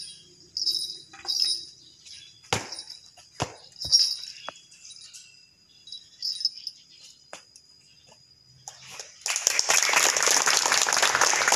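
A group of people clapping: applause breaks out about nine seconds in and keeps going. Before it there is only faint high-pitched chirping, with a few sharp knocks.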